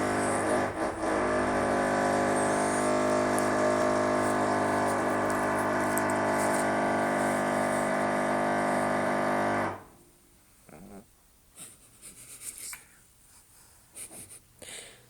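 A loud, steady drone made of many even tones cuts off suddenly about ten seconds in. After it come faint, irregular soft sounds, a sleeping pug snoring.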